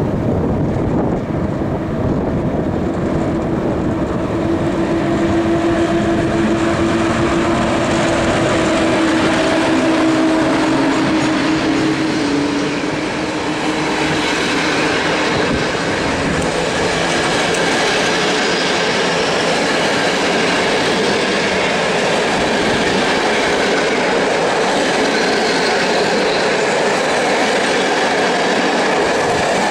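A Polish EU07-family electric locomotive and its TLK passenger coaches rolling past on the station track. There is a steady hum while the locomotive goes by in the first half, then the continuous rumble and rattle of coach wheels on the rails.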